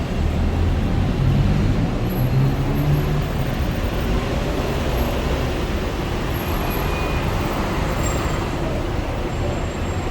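Busy city road traffic: a steady wash of car and bus engines and tyres, with a low engine note loudest in the first three seconds.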